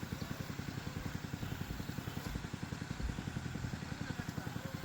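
A small engine idling with an even, rapid putter of about ten beats a second.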